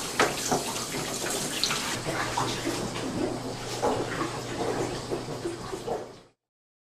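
Water running in a darkroom print wash, with scattered small knocks and splashes over a steady low hum. It cuts off suddenly near the end.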